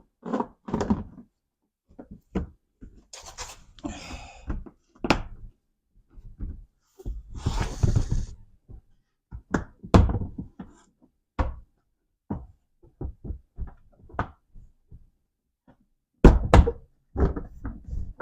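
Plastic interior door panel of a 2009 Smart car being knocked and pushed back into place on the door. Scattered knocks and scraping, with a quick run of loud thumps near the end.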